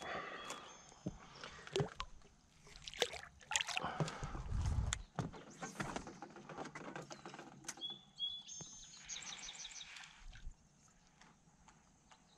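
Scattered clicks, knocks and splashes from handling a caught largemouth bass and fishing tackle over the side of a small boat. The loudest part is a low, noisy stretch about four to five seconds in.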